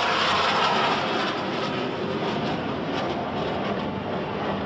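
Jet noise from the Solo Turk F-16 making a low pass, loudest in the first second and then easing off a little as it moves away.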